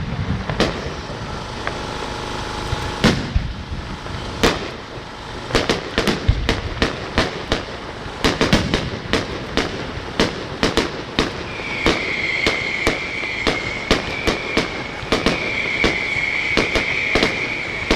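Aerial fireworks exploding: loud bangs and crackles, a few at a time at first, then coming thick and fast from about five seconds in.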